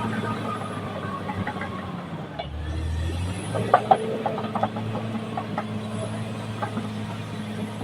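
Caterpillar D6R XL bulldozer's diesel engine running steadily under work. A run of short, sharp knocks comes through a little past the middle.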